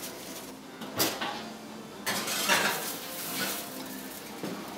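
A glass baking dish clinking and scraping as it is slid onto a metal oven rack, with a sharp knock about a second in.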